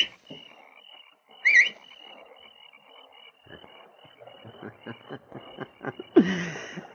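A man whistles twice, short warbling rising whistles given as a signal, over a steady pulsing chirping of a night-time frog chorus sound effect. From about halfway, a run of footsteps grows louder as someone approaches, and a brief voice sounds near the end.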